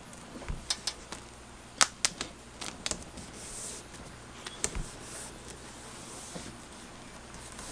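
Self-adhered window flashing tape handled on a window sill: the tape and its backing crackle and snap as they are peeled and pressed down by hand, in a scatter of sharp snaps with brief rustles between them, easing off in the last couple of seconds.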